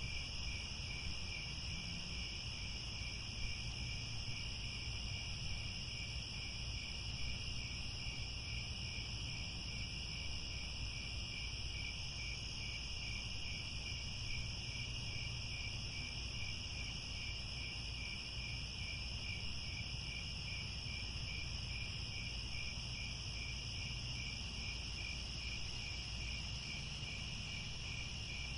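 Crickets chirping in a steady, evenly pulsing chorus over a low, steady rumble, with a few soft pops from a crackling fire.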